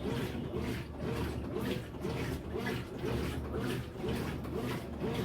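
Consul CWH14AB washing machine agitating a wash load: a low motor hum under a rhythmic churning of water and clothes that swings back and forth about once a second.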